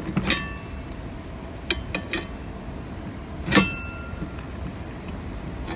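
Adjustable wrench clinking against a lock nut and the steel cart frame as the nut is tightened: about six sharp metal clinks, some ringing briefly, the loudest about three and a half seconds in.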